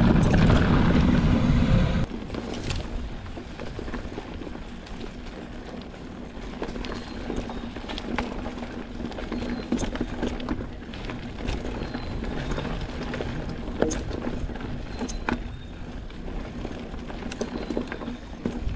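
Mountain bike being ridden over a dirt trail: a heavy low rumble that drops off suddenly about two seconds in, then steady tyre-on-dirt noise with scattered rattles, clicks and knocks from the bike.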